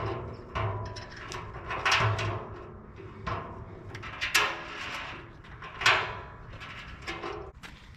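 Irregular metal knocks and scrapes on a steel drum during camp stove kit assembly, each followed by a short metallic ringing.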